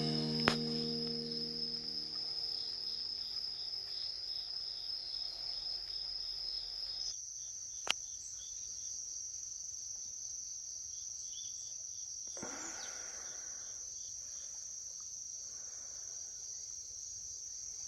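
Crickets trilling in a steady, high continuous chorus. About seven seconds in the trill steps up slightly in pitch, and a single short click sounds just before it and another shortly after.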